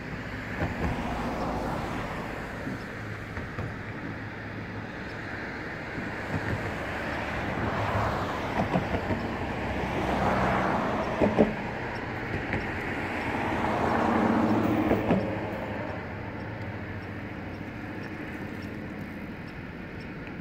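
Vehicles passing one after another, each swelling and fading, over steady background traffic and rail noise, with a few sharp clicks.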